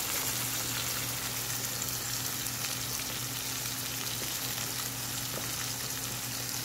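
Peppercorn-crusted beef tenderloin steaks frying in oil and melting butter in a metal pan, a steady sizzling hiss with small crackles as a wooden spatula moves the butter around. A low steady hum runs underneath.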